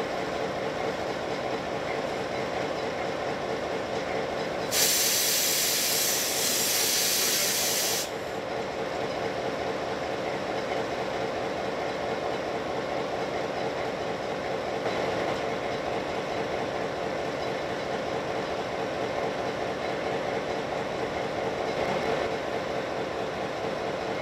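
Clyde-GM G6B diesel-electric locomotive idling steadily at a standstill. About five seconds in, a loud hiss of compressed air bursts out for about three seconds and then cuts off.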